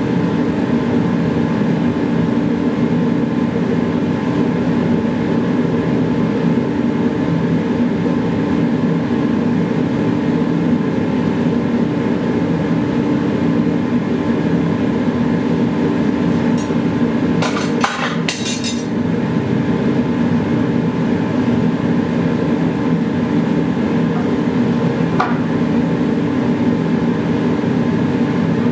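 Steady loud drone of a running blower, with a short cluster of metallic clinks a little past the middle.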